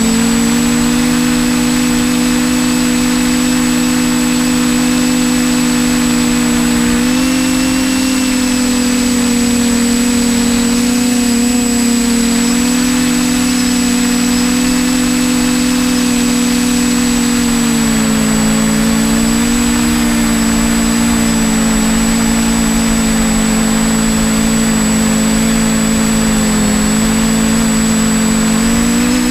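TBS Discovery Pro quadcopter's electric motors and propellers humming steadily while it hovers, heard from the GoPro on its frame. The several pitches of the hum shift slightly as the flight controller adjusts motor speeds to hold position. A thin, steady high-pitched whine runs beneath it.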